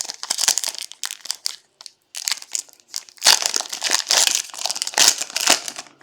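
Foil trading-card pack wrapper crinkling as it is handled and torn open, in dense crackly rustles with a short pause about two seconds in and louder crackling in the second half.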